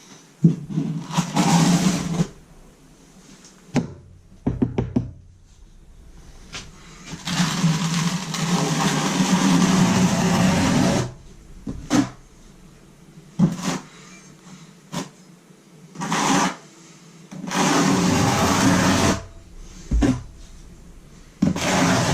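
Trowel scraping thinset mortar across the subfloor in several long strokes, with a few sharp knocks in between.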